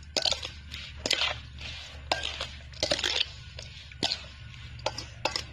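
A metal spoon tossing and scraping shredded green mango salad in a stainless steel bowl: irregular clinks and scrapes, roughly one every half second to a second, with wet rustling of the dressed mango strips.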